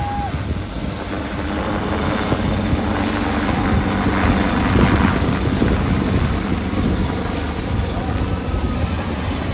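Helicopter flying low overhead, its rotor chop and turbine running steadily and swelling a little around the middle as it passes, over the voices of a crowd.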